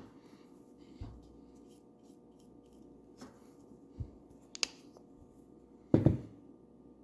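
Paintbrush bristles brushing paint onto a birdhouse in soft, scratchy strokes, with a few light taps and knocks, the loudest about six seconds in.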